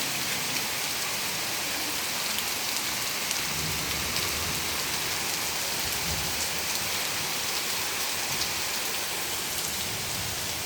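Heavy rain pouring steadily onto trees and garden ground, a dense even hiss with countless fine drop ticks, and a low rumble partway through.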